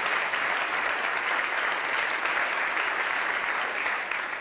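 Audience applauding steadily, dense clapping that dies away near the end.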